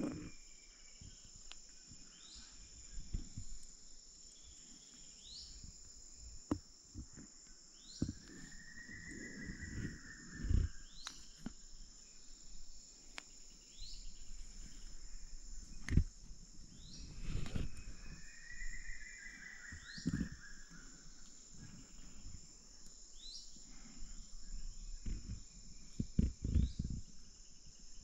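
Amazon rainforest dawn ambience: a steady high insect drone, with bird calls over it. The birds give short rising whistles every couple of seconds and a couple of longer arching calls. Occasional low knocks come through close by.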